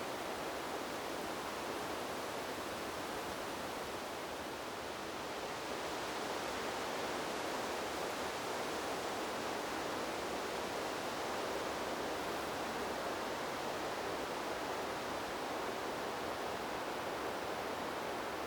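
Wind blowing through forest trees: a steady rushing of air through the leaves that eases slightly and then swells again about six seconds in.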